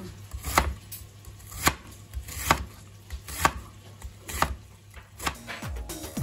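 Chef's knife slicing an onion on a wooden cutting board: six sharp knocks of the blade on the board, about one a second.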